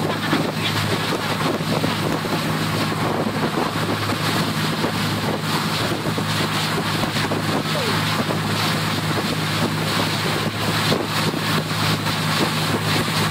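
Passenger ferry's engines running with a steady low hum, under wind buffeting the microphone on the open deck.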